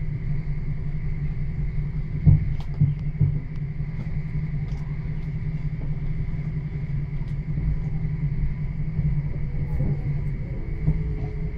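Copenhagen S-train running, heard from inside the carriage: a steady rumble of wheels on rails with a faint steady whine above it. A few short knocks come about two to three seconds in.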